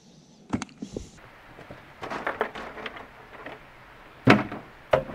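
Plastic bucket being handled and set down in a pickup truck's bed beside a cooler: scattered light clicks and rattles, then a loud thud about four seconds in and two more sharp knocks at the end.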